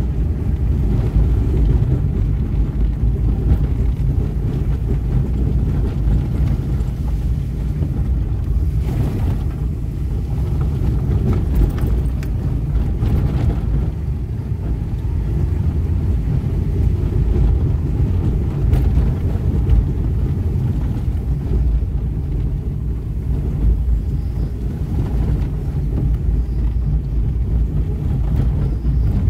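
Steady low rumble of a car's engine and tyres heard from inside the cabin while driving, with no change in speed or gear.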